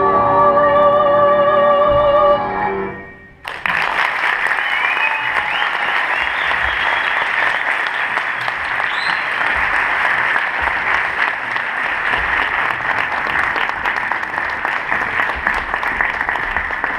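Children's singing ends on a held, wavering note and cuts off. After a short pause an audience breaks into loud, steady applause that lasts until near the end.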